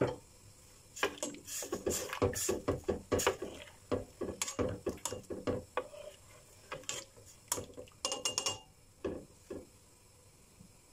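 A long black spoon stirring soup in a stainless steel pot, knocking and scraping against the pot's sides in a quick, irregular run of clicks and clunks lasting several seconds, then two last taps.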